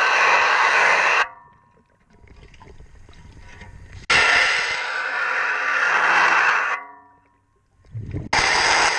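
Underwater, a diver's scuba exhaust bubbles rush out in long bursts of about two to three seconds, separated by quieter pauses for inhaling, in a steady breathing rhythm of roughly one breath every four seconds.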